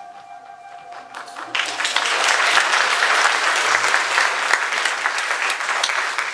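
The last held notes of recorded music fade, and about a second and a half in an audience breaks into applause, which stops just after the end.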